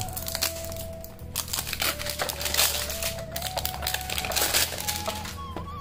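Thin plastic shrink-wrap crinkling as it is peeled off a small cardboard box, in a run of rapid crackles, over faint background music.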